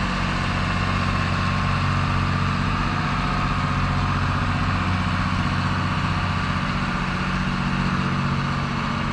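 Tractor engines running at a steady speed under power-take-off load, working the grain cart's unloading auger and the grain auger it feeds into: a constant low drone with a steady higher whine over it.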